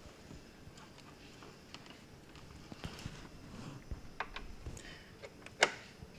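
Small clicks and taps of a power adapter plug being handled and pushed into its socket, with one sharp louder click about five and a half seconds in. The plug does not go in all the way.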